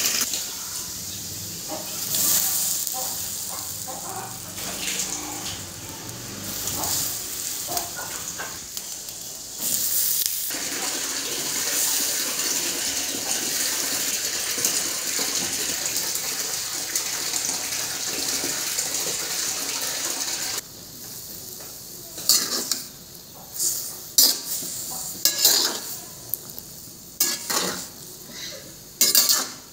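A steady hiss from a stainless wok of heating sour broth, which cuts off about twenty seconds in. A metal spoon then clinks and knocks against the wok again and again as a heap of mushrooms is stirred.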